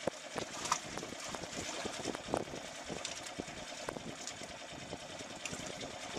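Boat outboard motor idling steadily, with scattered clicks and knocks over it.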